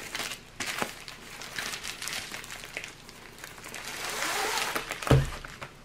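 A plastic bubble mailer crinkling and rustling as a long rolled canvas in plastic wrap is slid out of it by hand, with a single thump about five seconds in.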